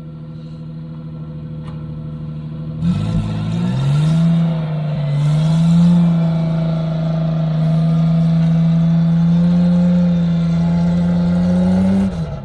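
Unimog 404's petrol six-cylinder engine working up a sand slope. It runs at low revs at first, revs up strongly about three seconds in, then holds high and steady under load until the revs drop suddenly near the end.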